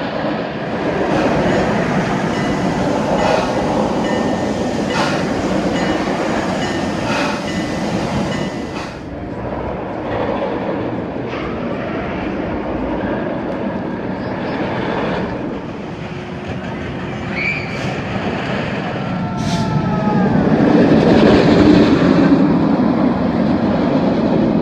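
Steel B&M looping roller coaster train running along its track, a continuous rumbling roar with scattered clicks, swelling louder near the end as the train passes close.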